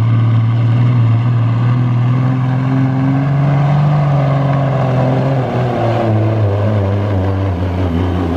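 Semi truck's diesel engine running hard under full load as it drags the pulling sled, a loud steady drone. Its note climbs a little, then drops back about five and a half seconds in.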